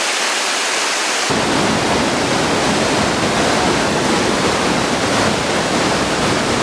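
Rainbow Falls waterfall: a steady, loud rush of falling water. About a second in, the sound turns suddenly fuller and deeper.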